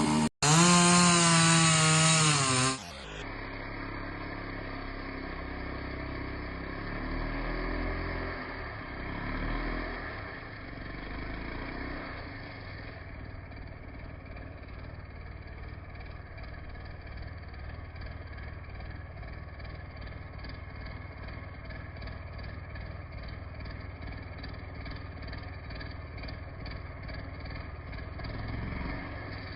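An engine revving up and down repeatedly for about three seconds. It then cuts off abruptly to a steady, lower engine running for the rest.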